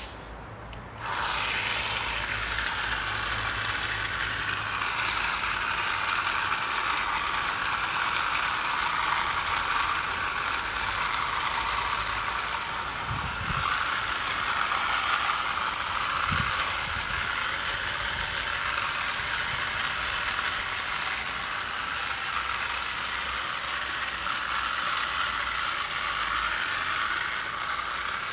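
WOLF-Garten WE-B battery-powered hand spreader running steadily from about a second in: its small motor spins the spreading disc and throws out granular lawn fertiliser.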